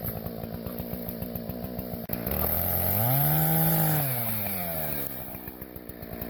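Two-stroke chainsaw idling, then speeding up about two seconds in, holding high revs for a moment, and slowing back down to idle.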